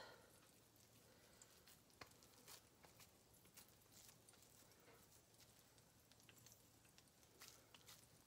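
Near silence: faint room tone with a few soft, scattered ticks.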